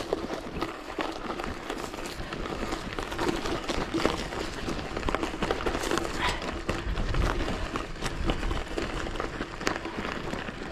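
Mountain bike riding over a forest trail of moss, pine needles and sand: steady tyre noise with frequent small clicks and rattles from the bike, and a low rumble.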